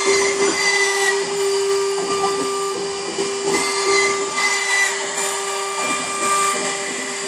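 Denford CNC mill's spindle running at about 23,000 rpm as a small cutter machines a wooden car body. It is a steady high tone over a constant hiss of cutting.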